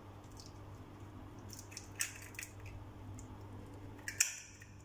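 Small clicks and rustles from a new chrome angle valve being picked up and handled, with a sharper click just past four seconds in, over a faint steady hum.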